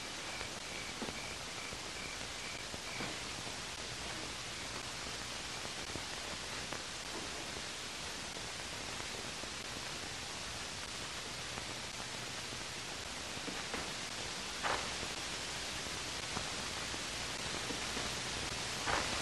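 Steady hiss of an old, worn recording, with a faint evenly pulsing high tone for the first three seconds and a few faint knocks scattered through, the clearest about three quarters of the way in.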